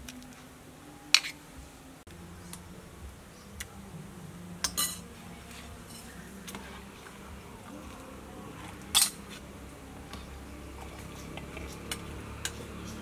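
Stainless-steel ladle clinking against a metal cooking pot and a ceramic bowl as dessert is ladled out: a few sharp clinks, the loudest about two-thirds of the way through, with quieter taps between.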